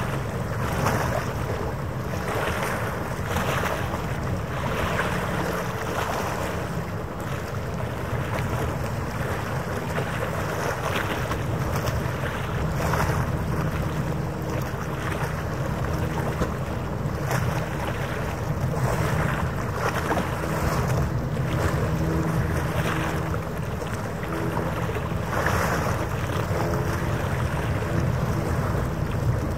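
Wind buffeting the microphone in uneven gusts over the wash of harbour water, with a steady low engine hum of boat traffic underneath.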